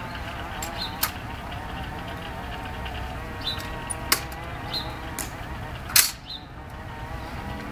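Three sharp clicks and knocks of an M14 rifle being handled by gloved hands during a guard's rifle inspection, about one, four and six seconds in, the last the loudest.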